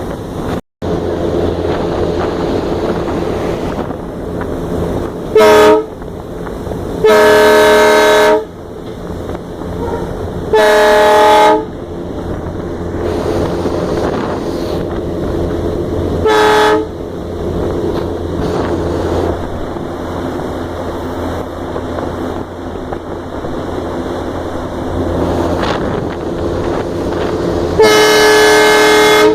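Diesel locomotive's horn sounded five times over the steady running noise of the engine and wheels: a short blast, two longer ones, another short one, and a long blast near the end. The horn blasts are very loud, heard from on the locomotive itself.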